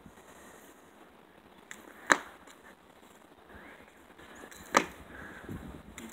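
A jump rope slapping the concrete sidewalk twice as a child skips, two sharp smacks a little under three seconds apart.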